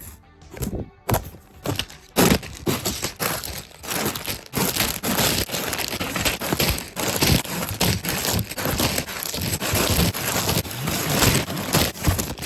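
LEGO set box being opened and unpacked: cardboard and plastic parts bags crinkling, crackling and rustling, with sharp cracks and handling knocks.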